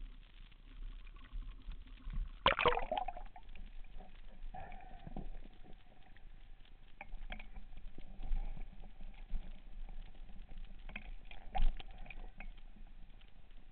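Underwater knocks, clicks and water noise picked up by a diver's camera, with a sharp loud knock about two and a half seconds in and another one near the end, and a faint steady tone under the later part.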